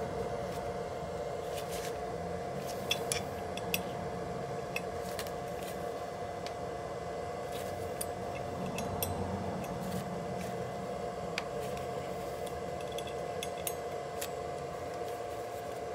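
Scattered light metallic clicks and clinks from hand tools and small metal scooter parts being handled, over a steady background hum.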